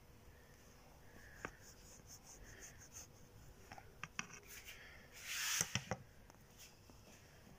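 Kitchen knife cutting through a baked fruit cake, with light scraping and ticking as the blade works through the crumb and touches the tray. About five seconds in there is a louder scrape and a few sharp clicks as the knife is set down on the tray.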